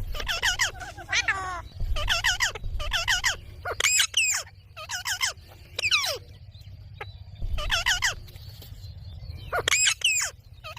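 Baby ringneck parakeet calling: a series of about ten short calls whose pitch wobbles up and down, repeated every half second to a second, over a steady low rumble.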